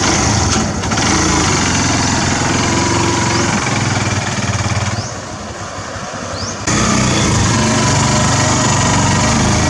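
Kawasaki Barako II 175 tricycle's single-cylinder four-stroke engine running loud and steady while riding. About five seconds in the sound drops for a second or so, then comes back suddenly.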